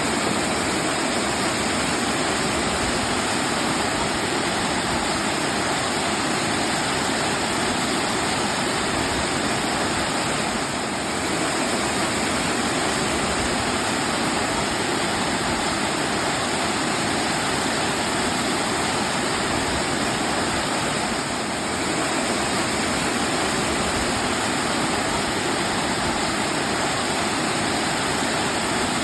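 Waterfall: water pouring in a steady, unbroken rush, dipping slightly twice, about a third and two-thirds of the way through.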